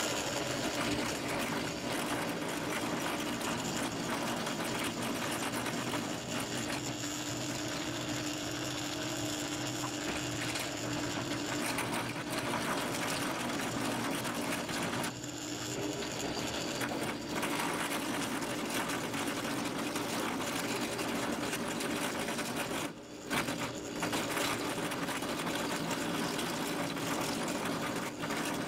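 Drill press running with a cutter bit milling a groove into a wooden board: a steady motor whir mixed with the rasp of wood being cut. It briefly drops out twice, near the middle and about two-thirds through.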